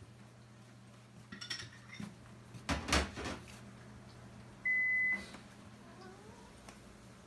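Household clatter of small knocks and clicks, loudest about three seconds in, followed by a single steady electronic beep about half a second long, over a faint low hum.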